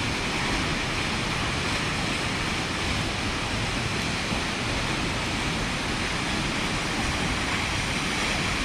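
Steady, even rush of a tall waterfall.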